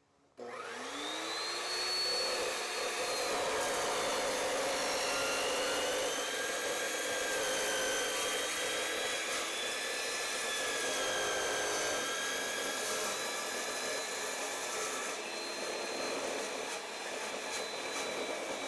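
Evolution 14-inch chop saw with a Diablo metal-cutting blade spinning up with a rising whine, then cutting through 4-inch square steel tubing with 3/16-inch wall. The whine wavers in pitch as the blade works through the steel.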